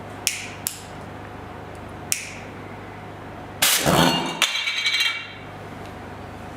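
Three sharp clinks, then alcohol vapour inside a glass jar ignites about three and a half seconds in with a loud whoosh lasting about a second and a half, carrying a high pitched tone from the jar in its second half before dying away.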